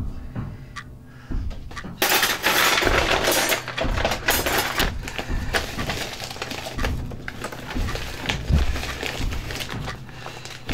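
A hand rummaging through a cluttered kitchen drawer, with papers, packets and small objects rattling and clattering. A few faint knocks come first; about two seconds in, a dense clatter starts suddenly and then goes on more unevenly.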